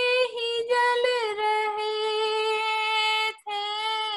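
A woman singing a Hindi devotional bhajan solo and unaccompanied, holding long drawn-out notes that step down in pitch, with a brief break about three seconds in.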